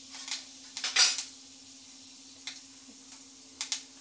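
A metal spoon clinks against a metal kadhai: a few sharp clinks, the loudest about a second in and a quick pair near the end. Fenugreek seeds roasting in the hot mustard oil sizzle faintly underneath.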